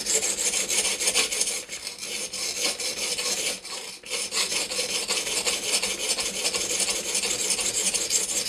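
120-grit Edge Pro sharpening stone rasping back and forth in quick strokes across the edge of a CTS-20CP steel knife blade, grinding on a new bevel. The strokes stop briefly a little after three and a half seconds in, then resume.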